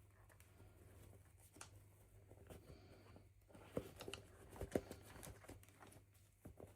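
Faint handling sounds of toy packaging: light rustling and scattered small clicks, with two sharper clicks a little under a second apart about four to five seconds in, over a faint steady low hum.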